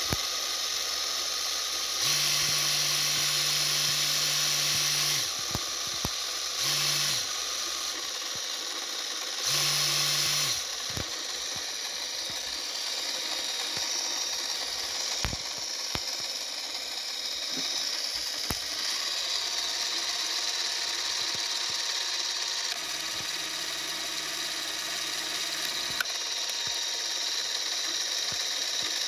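Braun Nizo 801 macro Super 8 camera's motor and film transport running with a steady mechanical whirr. It gets louder, with a low hum added, for about three seconds near the start and again twice more briefly, with a few small clicks.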